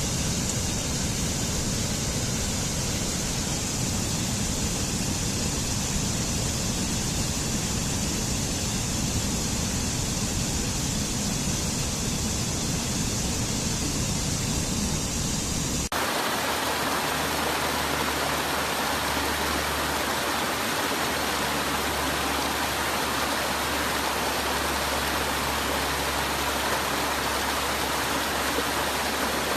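Waterfall, a steady rush of falling water. About halfway through it switches abruptly to a brighter, hissier rush with less low rumble.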